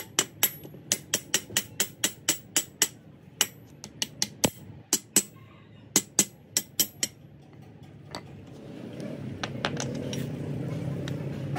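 Rapid hammer blows on metal, about four to five a second with a couple of short breaks, stopping about seven seconds in; then a steady low hum builds up.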